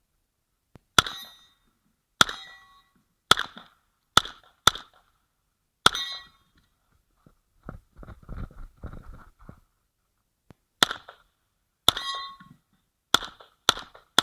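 Uzi Pro 9mm pistol firing single shots, each a sharp crack with a metallic ringing tail. Six shots come in the first six seconds, then a pause filled with softer, duller noises, then five more shots near the end.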